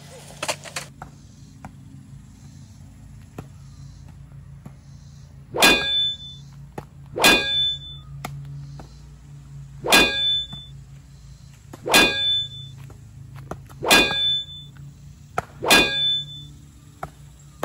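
Six metallic sword clangs, each a sharp strike with a short ringing tail, spaced about two seconds apart over a faint low hum.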